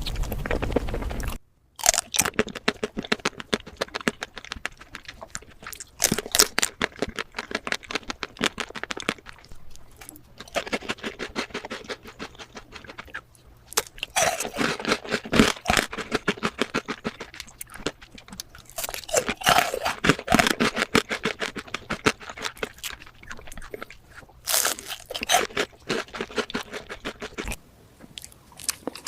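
Close-up crunching and chewing of sweets, in repeated bursts of sharp crackly bites with short pauses between them.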